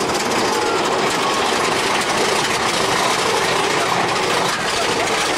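Big Thunder Mountain Railroad's roller coaster mine train clattering steadily along its track, heard from a rider's seat.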